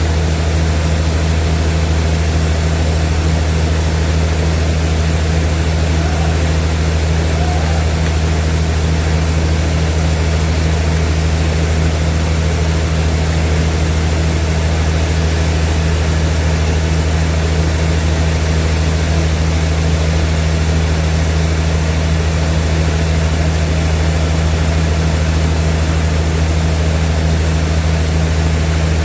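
Sawmill machinery running with a steady, unchanging low drone.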